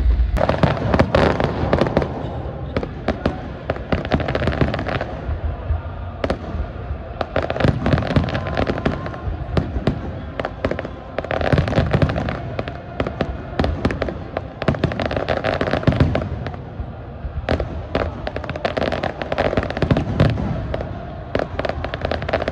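Fireworks display in a dense, continuous barrage: rapid crackling and popping of many shells at once, with deeper bangs now and then.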